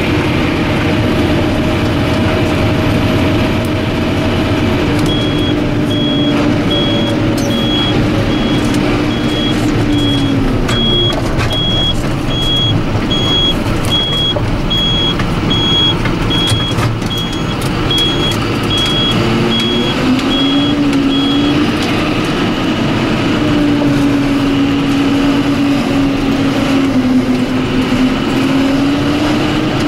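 John Deere 7530 tractor engine running under steady revs. The revs drop about ten seconds in and build back up around twenty seconds. A reversing alarm beeps at a steady rhythm from about five seconds in until just past twenty seconds.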